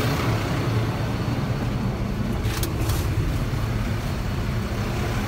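Fendt 936 tractor's diesel engine idling steadily, with two light clicks about two and a half seconds in.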